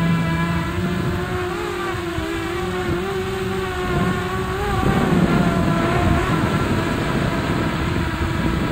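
XK X251 drone's motors and propellers whining as heard from its onboard camera, over a rush of air. The pitch wavers with the throttle, then drops and changes about five seconds in as the drone descends.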